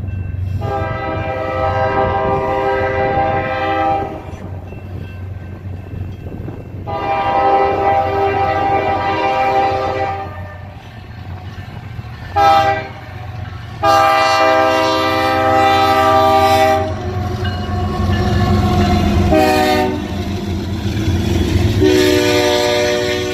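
BNSF diesel locomotive's air horn blowing the grade-crossing signal: two long blasts, a short one, then a long one. After that comes another short toot and a long blast as the locomotive draws level, over the steady low rumble of the approaching train.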